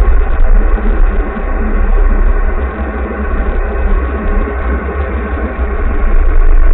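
Car engine and road noise heard from inside the car's cabin in slow traffic: a heavy low rumble that eases a little in the middle and swells again near the end.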